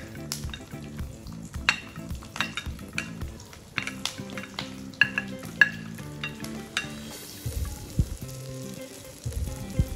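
Sliced onions going into hot oil in a nonstick pan and sizzling as they are stirred, with frequent sharp clicks and taps of the ladle against the plate and pan.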